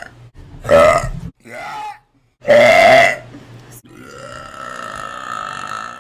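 A woman burping: two loud belches, about half a second and two and a half seconds in, with a smaller one between them, then a long, quieter, drawn-out steady sound through the last two seconds.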